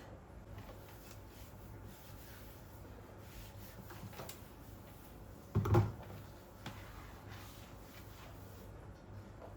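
Quiet room tone with a few faint handling clicks and one dull thump just past halfway.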